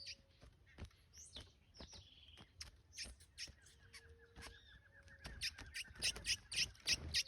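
Male coleiro (double-collared seedeater) giving many short, sharp, high chirps, growing louder and quicker over the last couple of seconds.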